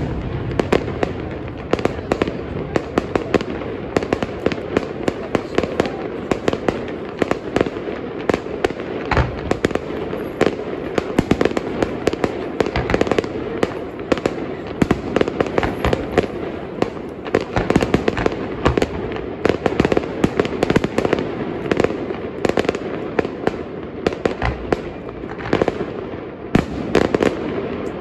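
A fireworks display going off without pause: a dense, continuous crackle of many small bangs, with a few deeper booms mixed in.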